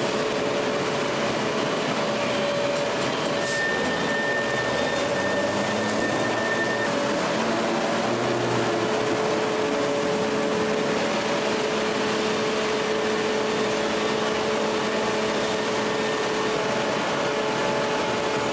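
Steady mechanical drone of a hydraulic forging press and forge-shop machinery running: an even noisy hum with a few faint steady tones and no distinct hammer blows. A thin higher tone sounds for a few seconds about four seconds in.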